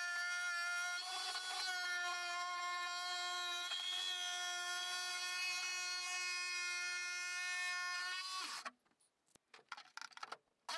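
A power tool running steadily with a constant high whine, no change in pitch. It cuts off abruptly a little over eight seconds in, leaving near silence with a few faint clicks, then the same whine comes back at the very end.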